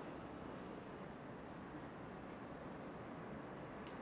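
Faint, steady high-pitched whine at one unchanging pitch over low background hiss, with a faint click near the end.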